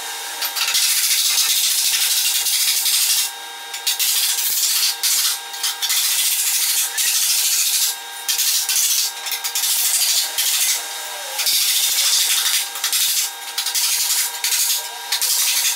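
A hand tool scraping a sheet of metal on a workbench: a loud, rough scraping hiss in long strokes with short breaks, over a steady hum.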